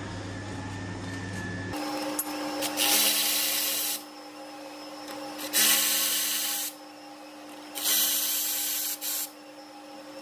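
Milwaukee cordless electric ratchet running in three short bursts, each about a second long, as it spins bolts on the exhaust manifold heat shield.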